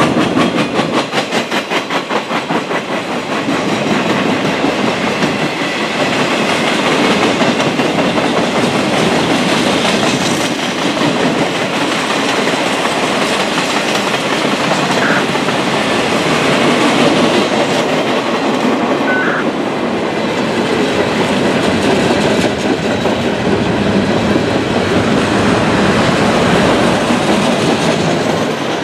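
Freight train cars passing close by, boxcars and then cars loaded with trash containers, with a steady rolling rumble of steel wheels on rail. In the first few seconds there is a fast, even clickety-clack of wheels over the rail joints.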